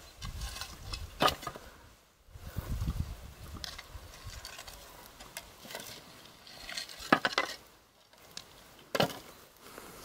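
Broken terracotta roof tiles clinking and clacking as they are lifted and set down, with soil scraped aside, while a covered pit oven is being uncovered. There are a few sharper clacks: about a second in, and twice near the end.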